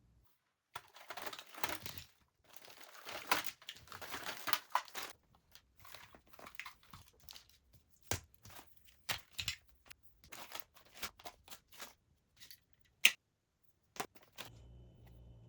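Rustling and crinkling, as of plastic or paper being handled, for the first four seconds or so, then a run of small clicks and light taps of objects being handled and set down, with one sharper click about thirteen seconds in.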